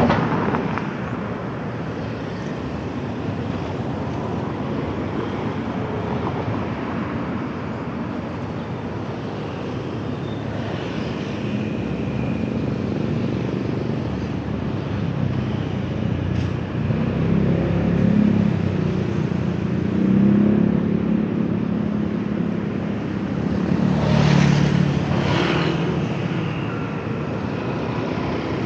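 Road traffic passing by: a steady wash of tyre and engine noise, with several vehicles swelling louder as they go past in the second half.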